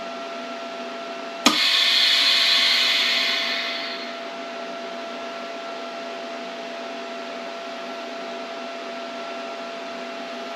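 Vevor DZ-260A chamber vacuum sealer ending its cycle: about a second and a half in, a sharp click and a loud hiss of air rushing back into the chamber as the vacuum is released, fading out over about two seconds. A steady hum runs underneath.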